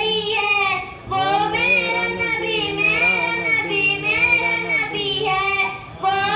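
A young girl singing a naat, an Urdu devotional song, into a microphone in long, ornamented held notes that glide up and down. She breaks briefly for breath about a second in and again near the end.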